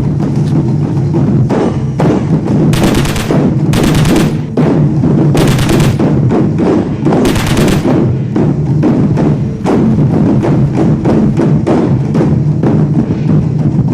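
Background music with heavy drums and a steady low bass, marked by four short, bright crashes of noise about three, four, five and a half and seven and a half seconds in.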